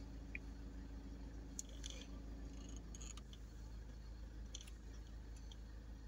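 Faint, steady low hum of a vehicle idling, heard from inside the cabin, with a few light clicks and taps.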